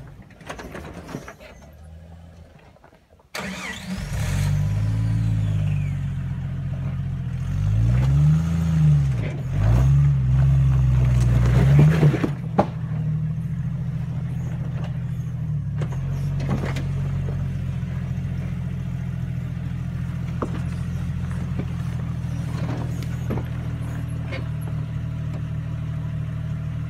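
Jeep Wrangler TJ engine crawling a rock ledge: the engine sound drops away, comes back suddenly about three seconds in, then revs up and down several times under load before settling into steady low running. A few sharp clunks come through along the way.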